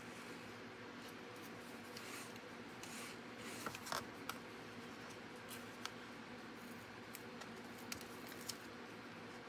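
Cardstock card being handled: faint paper rustles and a few soft taps as its folded panels are opened, closed and pressed flat, over a steady low room hum.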